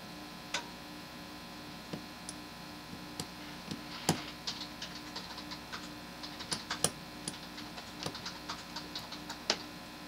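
Small sharp metal clicks and ticks from a brass lock cylinder being taken apart by hand and with steel tweezers as its pin stacks are removed, most of them bunched in the middle, over a faint steady hum.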